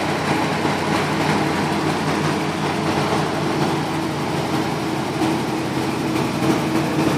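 1972 Ford F-250 pickup's engine idling steadily with an even, unchanging hum, heard from outside the truck with the hood up.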